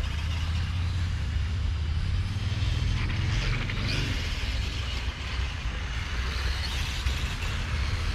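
Electric motors and gears of 1:10 Tamiya M-chassis RC cars whining as they race around the track, with a rising and falling whine about three to four seconds in as a car passes, over a steady low rumble.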